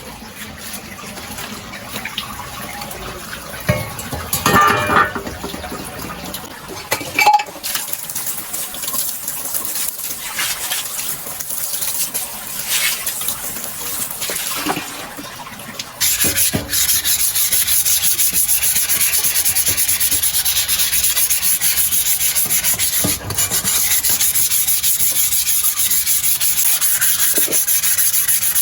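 Sanding a rusty bicycle frame: irregular rubbing and scraping strokes, then about halfway through a louder, steady high hissing grind takes over.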